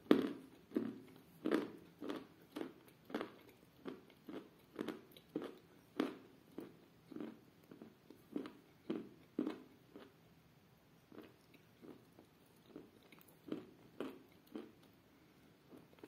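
Close-up chewing of chalk and clay softened in milk, with mouth noises about twice a second; the chewing becomes softer and sparser about ten seconds in.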